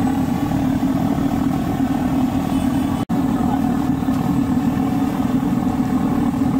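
Bread pakoras deep-frying in a large kadai of bubbling oil, over a steady low roar. The sound drops out for an instant about three seconds in.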